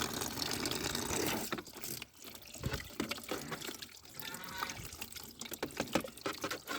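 Water from a pump running and splashing over muddy toy vehicles as they are rinsed by hand, with scattered small knocks and clicks.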